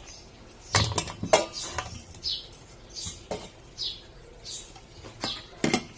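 Chopped tomatoes tipped off a plate into a steel saucepan, with several sharp knocks and clatters of plate and hand against the pan. Small birds chirp faintly in the background.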